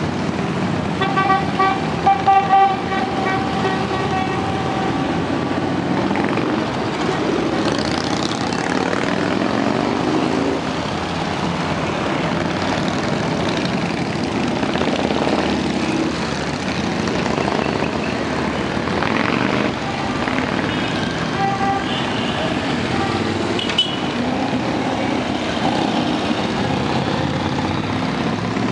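A procession of motorcycles, mostly Harley-Davidson V-twins, riding past one after another with engines running steadily. A horn sounds for a few seconds near the start and again in short toots about two-thirds of the way through.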